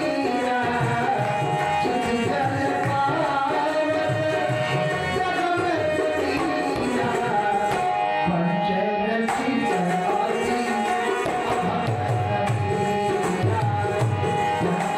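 Devotional bhajan music led by tabla drumming under a held, sustained melody line, with some singing.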